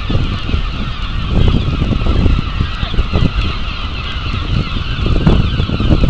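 A dense chorus of seagulls calling over one another, with gusts of wind buffeting the microphone.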